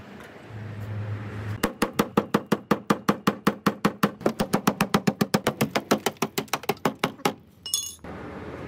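Steel hammer tapping rapidly on the rusted sheet-metal lip of a van's rear wheel arch, about seven sharp ringing knocks a second for over five seconds, knocking at the rusty quarter panel. A brief high chirp follows near the end.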